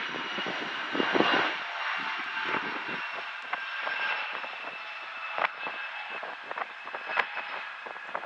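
Bombardier CRJ200 regional jet's two rear-mounted turbofans at takeoff thrust during the takeoff roll: a steady jet hiss with a high whine. From about halfway on, wind buffets the microphone in sharp crackles.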